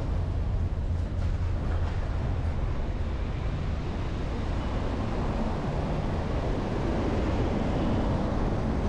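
Outdoor street ambience: a steady low rumble and hiss of distant traffic, with wind on the microphone.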